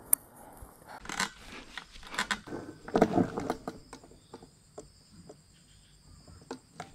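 Close rustling and scraping handling noise, with a sharp click just after the start, a burst of rustling about one to three and a half seconds in, then a few scattered small clicks.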